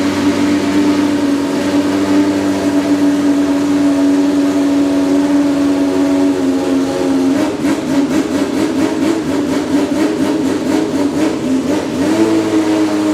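Historic Group C race car engine running loud at a steady pitch, which sags a little. It then turns into a rapid, rough pulsing for several seconds before the pitch rises again near the end.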